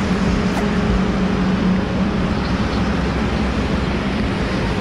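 Highway traffic going past: a steady rush of tyre and engine noise with a low, even hum running under it.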